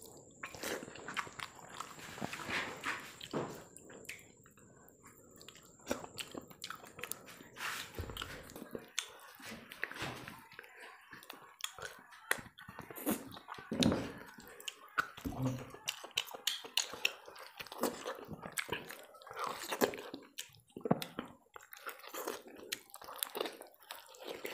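Close-miked eating: wet chewing, smacking and biting as mutton head curry with rice is eaten by hand, meat pulled off the bone in irregular bites.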